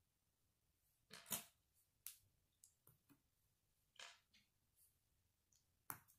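A handful of short, sharp plastic clicks and taps as K'nex pieces are handled and a K'nex rod is snapped into a connector, the loudest about a second in.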